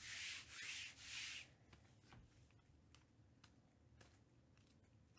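2021 Panini Prizm baseball cards, glossy card stock, sliding against each other as a stack is worked through by hand: three soft swishes in the first second and a half, then faint light clicks as single cards are moved across.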